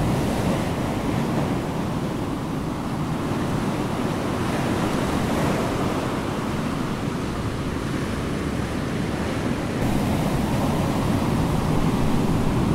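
Steady rushing noise of ocean surf and wind, swelling slightly about ten seconds in.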